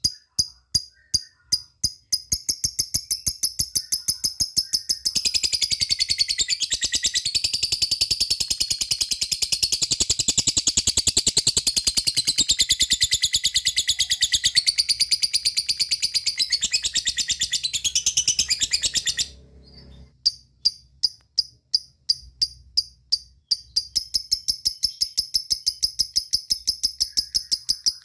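Lovebird calling: a fast series of high ticking chirps that runs into a long unbroken rattling chatter (ngekek) of about fourteen seconds, which breaks off abruptly before the ticking chirps resume.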